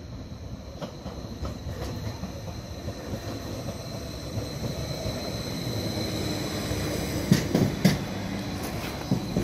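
A Stadler FLIRT Class 755 bi-mode unit running on its diesel power packs approaches and passes close beneath. Its running sound swells steadily as it nears, with a steady high whine, and a few sharp knocks come about seven to eight seconds in as it goes by.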